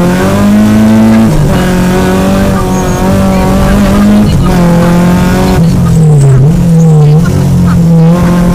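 Peugeot 205 GTI rally car's four-cylinder engine heard from inside the cabin, pulling hard at high revs. The pitch climbs, drops sharply a little over a second in and again around four seconds at gear changes, dips as the car slows around six seconds, then rises again.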